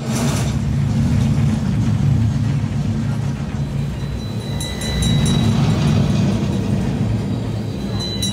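Theme-park dark ride vehicle running through its track, a loud steady low rumble, with a faint high tone from the ride's effects about halfway through and again near the end.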